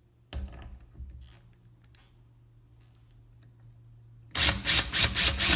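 Cordless drill with a Phillips bit on a screw in a metal closet rail: a short bump just after the start, then about four seconds in a rapid run of loud, even clicks, about four a second.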